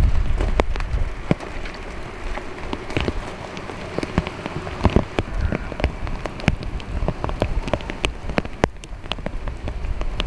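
Rain falling, with many irregular drops ticking on nearby surfaces over a steady hiss. A heavy low rumble fades out in the first second or so.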